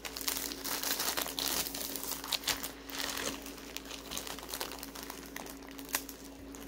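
Clear plastic packaging crinkling irregularly as it is handled and folded, with a few sharper crackles in the first half.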